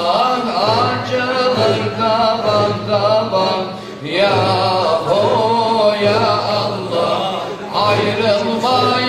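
Men's group chanting Qadiri Sufi dhikr (devran) in unison: a sung melodic line over a repeated deep chant, with a short drop in level about four seconds in.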